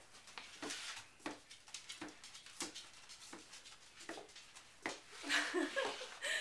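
Footsteps of a toddler shuffling in oversized adult shoes on a tile floor: irregular scuffs and knocks, roughly one or two a second. A brief voice near the end.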